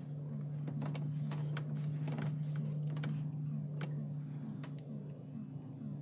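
Steady low electronic hum of a spaceship ambience, pulsing faintly about three times a second, with scattered rustles and clicks, typical of a present being unwrapped.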